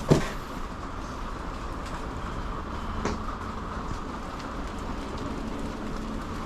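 Steady mechanical drone and hiss inside a delivery truck, with a faint constant hum underneath. A sharp knock comes right at the start and another about three seconds in.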